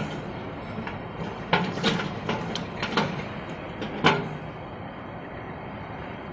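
Plastic pens clicking and clattering against each other and the tray as a hand shifts and picks them up: a handful of separate sharp knocks, the loudest about four seconds in, over a steady background hum.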